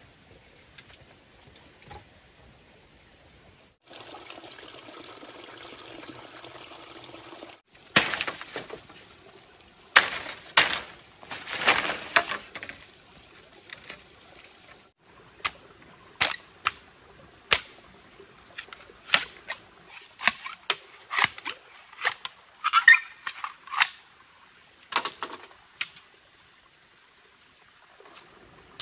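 A series of irregular sharp knocks and cracks, one every second or so, begins about eight seconds in, over a steady high insect drone. A few seconds of steady rushing noise come about four seconds in.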